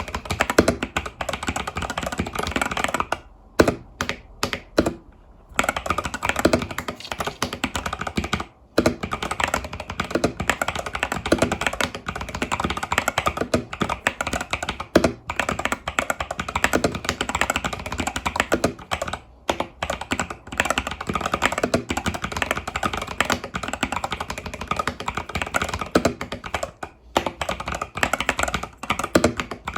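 Fast typing on an Epomaker TH80 Pro mechanical keyboard with Epomaker Budgerigar tactile switches and stock keycaps: a dense run of key clacks, pausing briefly about three seconds in and again near nine seconds.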